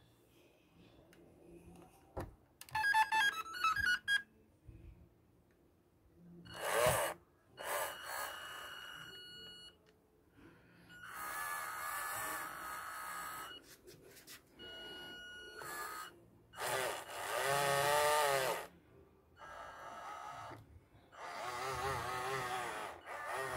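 A quick run of electronic beeps from the Radiomaster TX16 transmitter about three seconds in, then the CAT 320D radio-control model excavator's electric motors whining in several short bursts of one to three seconds, some steady in pitch and some wavering, as the sticks are worked.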